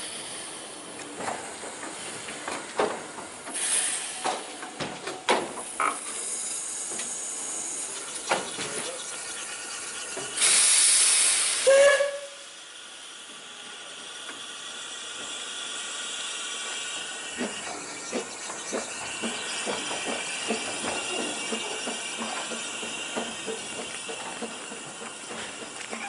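Narrow-gauge steam locomotive working with its cylinder drain cocks open: steam hissing with irregular chuffs. About ten seconds in comes a loud blast of steam, ending in a brief whistle note, and then a steady hiss with fainter, regular chuffing.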